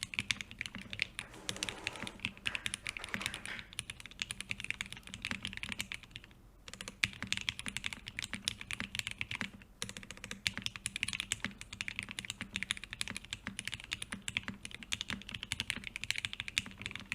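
Continuous typing on a Peac Design PLX gasket-mounted custom mechanical keyboard with lubed Gateron CJ linear switches, an FR4 plate, PBT keycaps and no foam: a dense run of keystroke clacks. The typing pauses briefly about six and a half and nine and a half seconds in.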